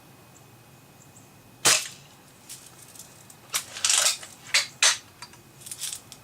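Marlin BB rifle being fired and worked: one loud sharp snap of a shot about two seconds in, then a quick run of sharp snaps and clicks from shots and cocking, with fainter clicks near the end.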